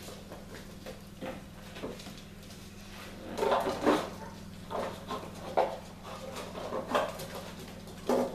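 Young puppies giving a series of short yips and whimpers, starting about three seconds in, with small clicks of paws on a tile floor before them, over a steady low hum.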